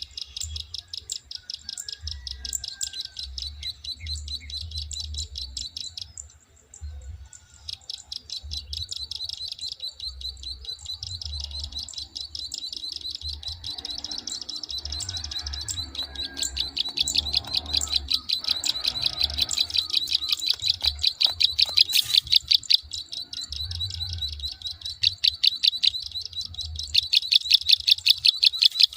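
Prinia 'klik' calls: a fast, even run of sharp clicking notes that grows louder in the second half.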